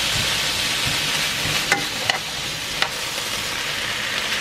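Beef and sliced onion sizzling steadily in a frying pan as they are stirred with a metal utensil, with a few sharp clicks of metal against the pan.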